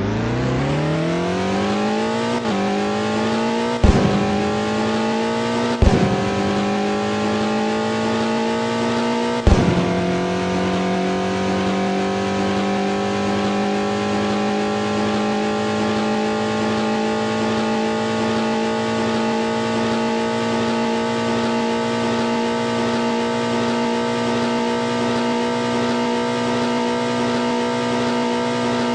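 Stock car engine accelerating hard. It shifts up about four times in the first third, each shift marked by a sudden pitch drop and a sharp crack, then it holds a steady high-revving drone at speed.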